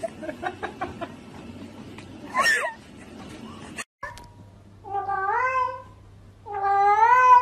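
A cat meowing: two drawn-out calls in the second half that rise and fall in pitch, the second louder and longer, over a low steady hum. Earlier there is one short cat call among scattered light knocks.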